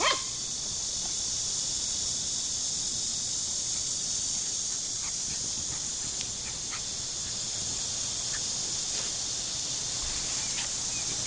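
Steady high-pitched drone of insects, with a single short puppy yip right at the start.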